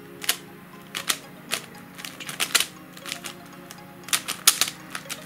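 Sharp plastic clicks and clacks of a MoYu Meilong kilominx, a two-layer dodecahedron twisty puzzle, as its faces are turned quickly by hand. The turns come irregularly, bunching into a fast flurry about four seconds in.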